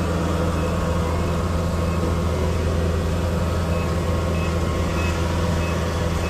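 A farm vehicle's engine running steadily under way, a constant low drone.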